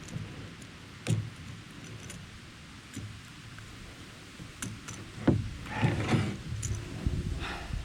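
Scattered knocks, clicks and rattles of a just-caught small largemouth bass and a landing net being handled in a kayak, sparse at first and busier over the last two or three seconds.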